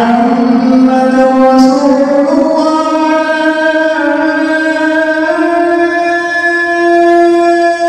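Azaan, the Islamic call to prayer, sung by a muezzin: one long drawn-out melodic note, its pitch climbing in small steps and then held.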